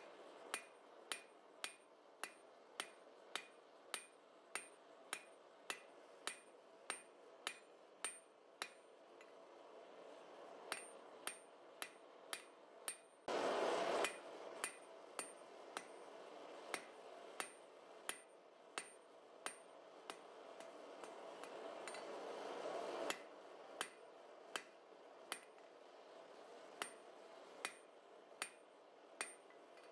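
Hand hammer striking a red-hot steel bar on an anvil at about two blows a second, each blow ringing briefly, while a tapered point is drawn out thin enough for a drive hook. The hammering pauses briefly about 9 seconds in, and a short burst of noise comes about 13 seconds in.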